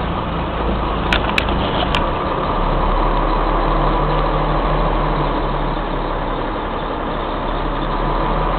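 Old Mack CF fire engine's engine running steadily, heard from inside the cab, with a few sharp clicks between one and two seconds in.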